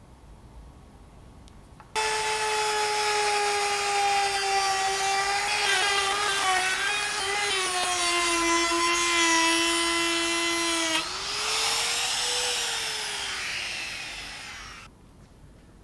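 Compact trim router running with a high whine as its bit cuts into oak. The pitch dips and wavers under load. About nine seconds in, the pitch rises and then falls away as the motor winds down, and the sound stops suddenly near the end.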